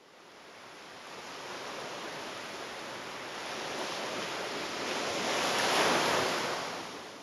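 Ocean surf washing onto a sandy beach, a steady rushing hiss that fades in, grows to its loudest about six seconds in, then fades away near the end.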